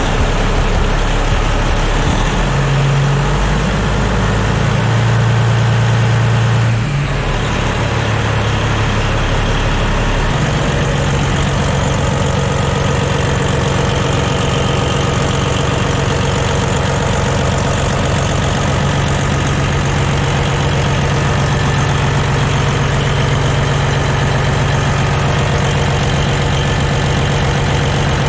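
Caterpillar 6NZ inline-six diesel truck engine running, somewhat higher and uneven for the first several seconds, then settling to a steady idle about ten seconds in. The engine has freshly replaced exhaust manifold gaskets, which cured an exhaust-leak tick.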